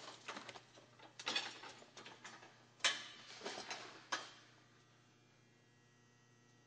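Sheet of stone-coated metal flat stock rattling and scraping as it is slid and set into a top course bender, with two sharp metal clacks; the handling stops about four seconds in.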